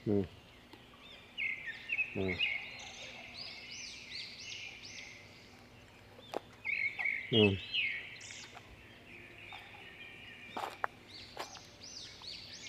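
Small birds chirping in quick runs of repeated high, arching notes, in three bouts with pauses between. A few brief low falling sounds cut in near the start, about 2 s in and about 7.5 s in; the last is the loudest thing heard.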